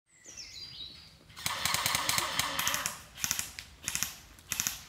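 Full-auto gunfire played through a speaker-based sound device fitted to an airsoft PKM, using a Colt M4 gunshot sample from Counter-Strike: Source. One long burst of rapid shots starts about a second and a half in, followed by three short bursts. A few bird chirps come just before the firing.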